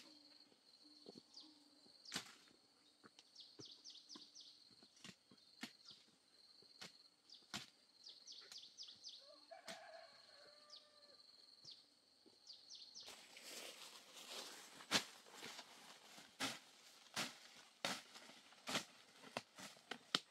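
Quiet forest ambience: a steady high insect buzz with bouts of short bird chirps and scattered snaps. About two-thirds through, irregular rustling and crunching footsteps through leafy undergrowth start up.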